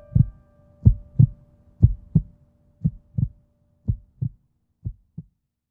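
A heartbeat: paired low thumps, lub-dub, about once a second, growing fainter toward the end. Under the first few beats the tail of a held musical note dies away.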